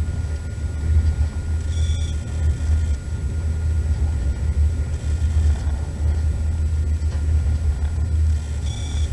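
Steady low rumble of a train running, heard from inside the carriage, with two brief high-pitched squeals, about two seconds in and again near the end.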